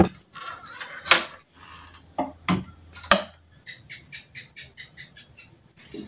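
Metal key clicking in the lock of a wooden wardrobe and the door knocking as it is opened, several sharp clicks and knocks. Near the middle comes a quick run of short high chirps, about five a second.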